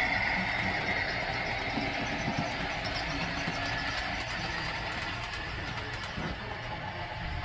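Model Amtrak passenger train running on the layout track, a steady rolling rumble of its wheels on the rails that fades gradually as the train moves away.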